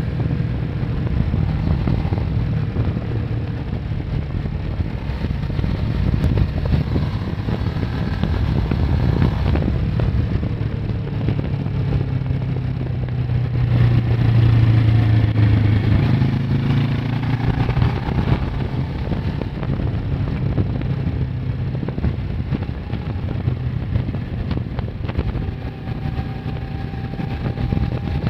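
Kawasaki ER-6n's 649 cc parallel-twin engine running as the motorcycle is ridden along, heard from a phone mounted on the bike. It grows louder for a couple of seconds about halfway through, then eases back.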